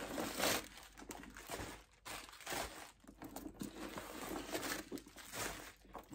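Paper stuffing being pulled out of a new backpack, with irregular crumpling and crinkling rustles.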